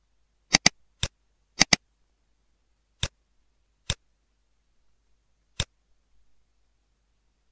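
Computer mouse button clicks: a quick double-click, a single click and another double-click in the first two seconds, then three more single clicks spread over the next few seconds.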